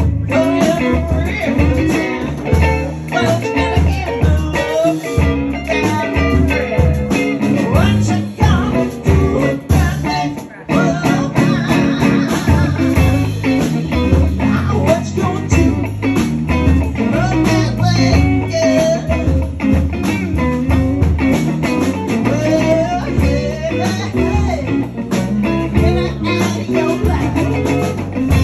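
Live band playing amplified electric guitars over bass and drums, a steady loud rock/blues groove.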